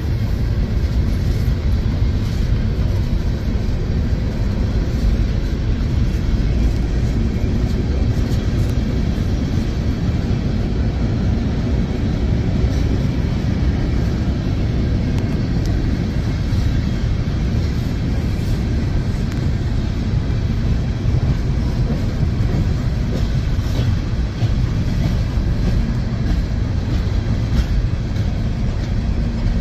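Empty open-top hopper cars of a freight train rolling past at steady speed, a continuous loud rumble of steel wheels on the rails.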